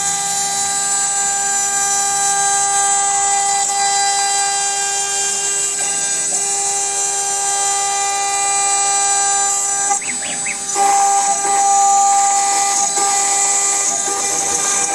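CNC router spindle running at high speed while milling cellulose acetate: a steady high whine made of several tones over a hiss. About two-thirds of the way through the sound breaks up briefly, then the whine comes back louder.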